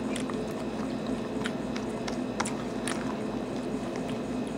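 Metal fork picking through salad in a plastic container, making a few light scattered clicks, over a steady low room hum.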